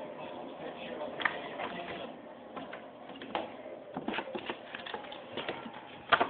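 A kitten chewing and pulling at a paper Christmas card: card rustling and crinkling, with irregular clicks and taps that come thicker in the second half and a sharp loud click near the end.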